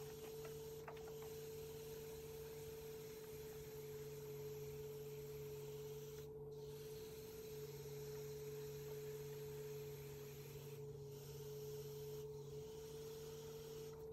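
Electric potter's wheel motor running with a faint, steady hum during trimming, stopping near the end.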